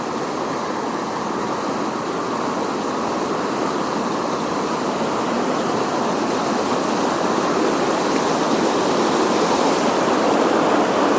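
Small river running over a shallow riffle: a steady rush of water that grows slowly louder.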